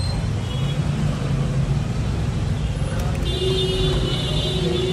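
Busy street traffic rumbling steadily, with a held tone joining in about three seconds in.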